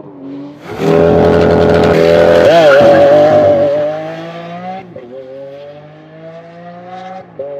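A supercar engine accelerating hard, its pitch climbing steadily. It is loudest in the first few seconds, then pulls on more quietly, dropping in pitch at two upshifts, about five and seven seconds in.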